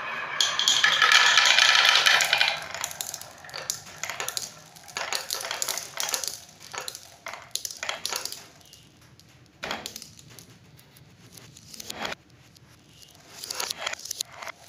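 Glass marbles rolling and clacking through a wooden and plastic marble run: a dense, loud rattle for about two seconds near the start, then scattered clicks and clinks as marbles roll, drop and bump into each other, with two sharper knocks near the middle and busier clattering again near the end.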